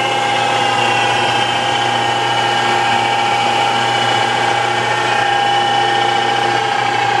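Lagun FTV-4 vertical milling machine's variable-speed spindle running with a steady whine. Some of the higher tones ease slightly lower in pitch over the first few seconds.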